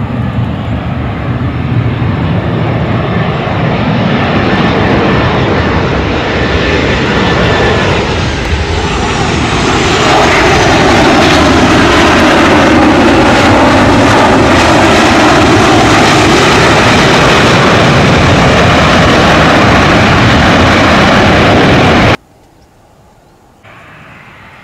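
Loud jet engine noise from a Boeing 737 airliner on the runway. A falling whine comes about eight seconds in, and the noise is at its loudest from about ten seconds on. It cuts off abruptly near the end, leaving only a faint background.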